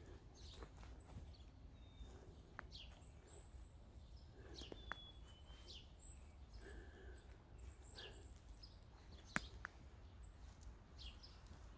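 Near silence in a forest: faint, high, thin bird calls now and then, over soft footsteps on moss and leaf litter. There is a single sharp click about nine seconds in.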